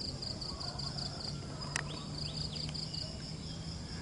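Insects chirping in a fast, even pulse of about five chirps a second, pausing briefly about halfway through, with one sharp click just before the pause and a low steady hum underneath.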